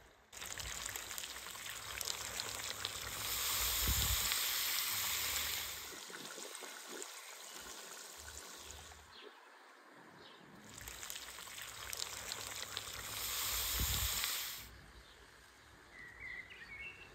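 Rabbit pieces and tomatoes sizzling as they fry in a pot over a fire. The sizzle swells loud twice, about 3 s in and again about 13 s in, then settles. Faint bird chirps come near the end.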